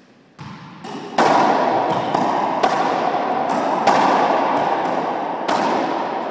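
Racquetball rally: the hollow rubber ball being struck by racquets and hitting the walls and floor, about a dozen sharp hits, each one echoing around the enclosed court.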